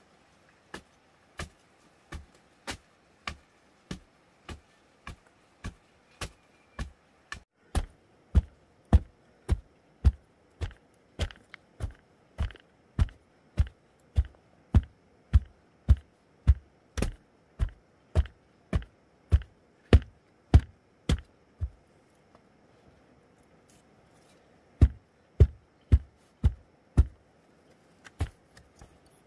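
Steady chopping with a blade, about two strokes a second, each a dull thud, pausing for about three seconds three-quarters of the way through.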